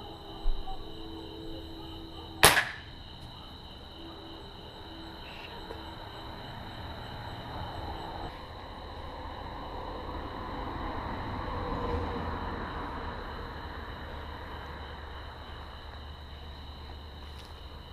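A single sharp BB gun shot about two and a half seconds in, with a smaller click half a second in. Crickets chirp steadily behind it throughout.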